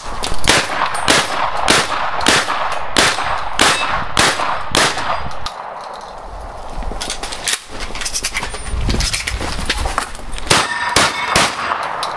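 Semi-automatic 12-gauge shotgun fired in a rapid string, about one shot every half second, then a pause of a couple of seconds before more shots near the end. Metal targets clang and ring as they are hit.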